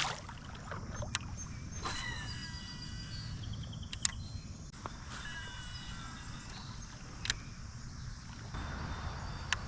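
Outdoor creek ambience: birds calling in short falling and repeated high notes over a low steady rumble, with three sharp clicks spread through it.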